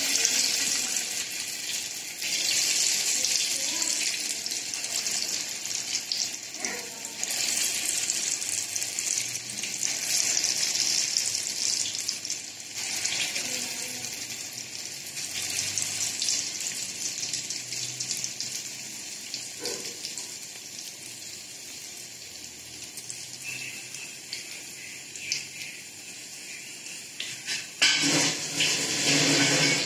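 Pakoda batter deep-frying in hot oil in an aluminium kadai: a steady sizzling and bubbling that swells and eases off several times as pieces of batter go in. A louder burst of noise comes near the end.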